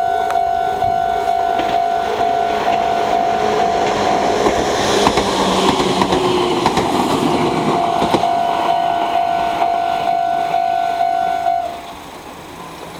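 Meitetsu 6000 series electric train passing a level crossing, its running noise swelling to a peak in the middle, with wheels clicking over the rail joints. The crossing's warning bell rings as a steady tone throughout, then cuts off suddenly near the end as the crossing clears.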